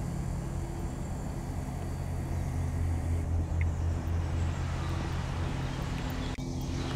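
A steady low engine hum from a motor vehicle, with a brief dropout near the end.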